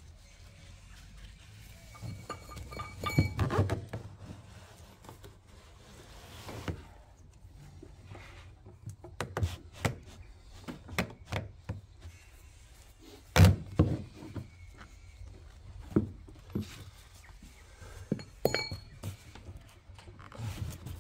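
Scattered knocks, clicks and clinks of plastic and metal as a diesel fuel tank's sender unit is seated and its locking ring worked tight. Short ringing clinks come about 3 s and 18.5 s in, and the loudest thunk comes about 13.5 s in.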